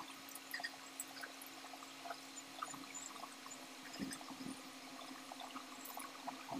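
Wet chewing and mouth sounds of someone eating juicy lansones fruit, with scattered small clicks as the thin peel is pulled off, over a faint steady hum.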